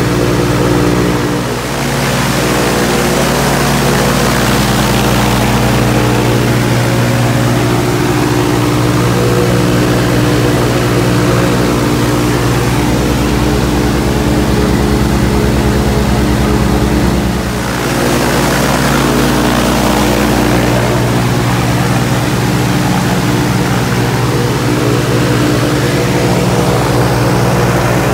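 Viking aircraft engine and propeller running steadily at about 2,700 rpm, heard from inside the cockpit. Its loudness dips briefly twice, about a second and a half in and near the middle. The alternator is off, so the engine runs on battery power alone.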